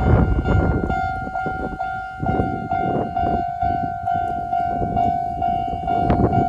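Level-crossing warning bell ringing in a steady repeating electronic tone, about two strokes a second, while a Konan Railway 7000-series electric train rumbles through, its wheels knocking over the rail joints.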